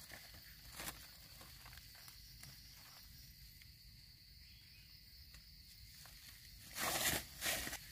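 Steady high insect drone, with a few short rustles in dry leaf litter as a wild mushroom is picked; the two loudest rustles come about seven seconds in.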